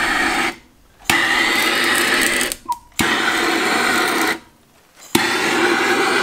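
Handheld gas torch lighting charcoal: a steady roaring hiss in repeated bursts. It cuts out three times for about half a second, and each time restarts with a sharp click.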